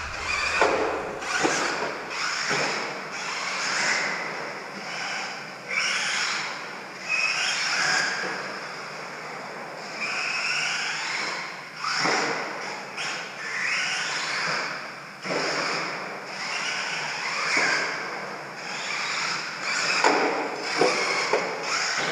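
Radio-controlled stadium truck running laps on a clay track, its motor whine rising and falling with the throttle. Several sharp knocks are heard over it, including at the start and around the middle and near the end.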